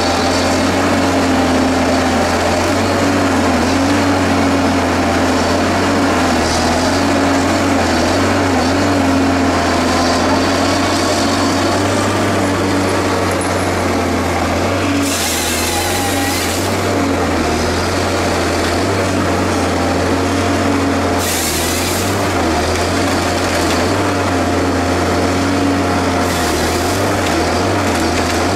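Rottne H20 harvester's 254-hp diesel engine running under load with hydraulic whine, its pitch wavering as the head feeds and processes a stem. Three short rasping bursts, about halfway, two-thirds of the way and near the end, are the harvester head's chain saw bucking the stem into logs.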